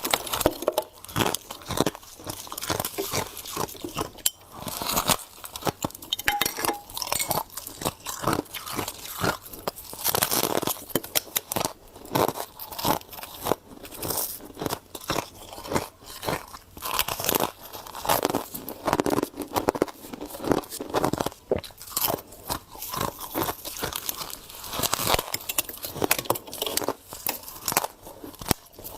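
A person chewing mouthfuls of frost, a steady run of irregular crisp crunches with brief gaps between bites.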